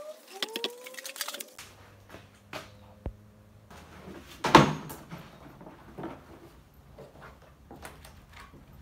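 Stiff, sun-dried cowhide rustling and crackling as it is handled and spread out across a wooden table, loudest in one sharp crackle about four and a half seconds in. A few clicks and knocks come in the first second and a half.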